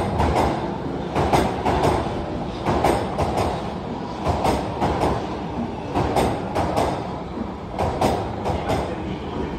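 Subway train running past along an underground platform: a steady rumble with sharp wheel clacks over the rail joints, coming in uneven groups.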